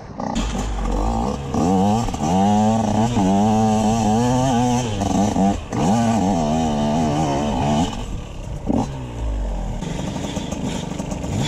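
TM EN 144 two-stroke enduro motorcycle engine revving hard, its pitch rising and falling quickly as the throttle is worked, then settling to steadier, lower running near the end.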